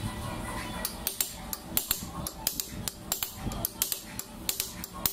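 Irregular sharp metal-on-metal taps and clicks as a steel tool is worked against the clutch plate of a car AC compressor, starting about a second in and coming two or three times a second.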